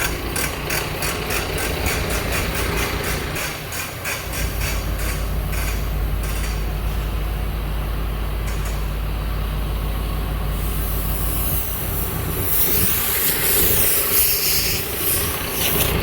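Farm tractor engine running steadily. A quick, even rattle of clicks sounds over it for the first six seconds or so, and a hiss rises about three-quarters of the way through.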